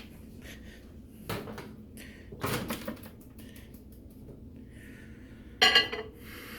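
Light knocks and clicks of a bowl being handled, then a louder clunk with a short ring near the end as a microwave oven's door is worked.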